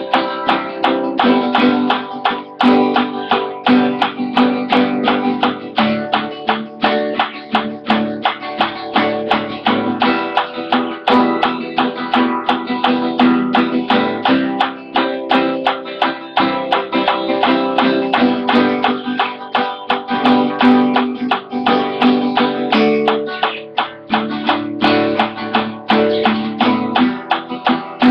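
Acoustic guitar strummed with a pick in a steady three-beat rhythm, with the chord changing every few seconds.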